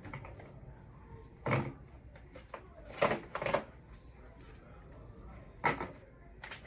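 A handful of separate knocks and clatters, as of objects being handled and set down, about five over several seconds with quiet between them; no vacuum motor is running.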